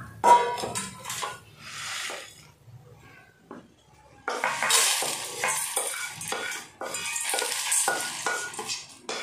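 Dry-roasted whole spices, mostly dried red chillies and coriander seeds, scraped around a kadai. From about four seconds in they are poured and pushed with a spatula into a steel bowl: a dense rattle of seeds on metal with scraping.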